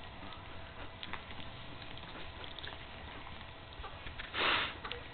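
Newborn puppies nursing on a mother dog, with faint small clicks and rustles as they suckle and shift on the blankets. A little past four seconds in comes one loud, breathy dog sniff lasting about half a second.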